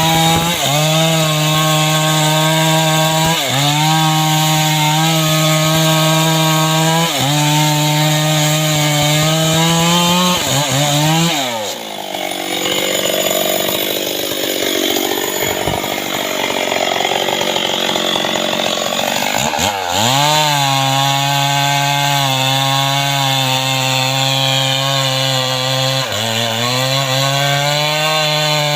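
Chainsaw cutting mahogany wood at full throttle, its pitch sagging briefly under load every few seconds. About 11 seconds in it drops to a lower, uneven run for some eight seconds, then revs back up and cuts on.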